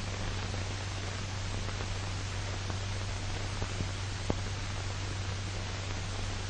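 Steady hiss and low hum of an old 1940s film soundtrack, with a few faint clicks a little past the middle.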